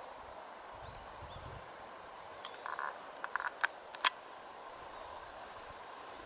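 Camcorder handling and zoom noise: a cluster of short clicks and brief buzzes from about two and a half to four seconds in, the last click the loudest. Under it runs a steady outdoor hiss with faint, high bird chirps.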